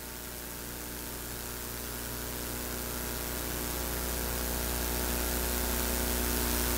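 Steady electrical hum with hiss, slowly growing louder.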